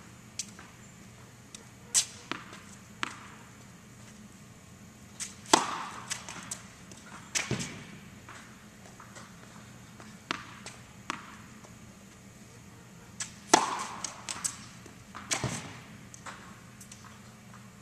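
Tennis practice serves on an indoor hard court: a ball bounced on the court a few times, then two sharp racket-on-ball serve strikes about eight seconds apart, each followed about two seconds later by a duller knock of the ball landing at the far end. The strikes echo in the hall.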